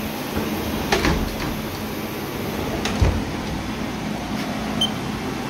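Sliding front doors of a Haas VF-2 CNC vertical mill's enclosure being pushed shut, with a knock about a second in and a louder thud about three seconds in, over the machine's steady hum.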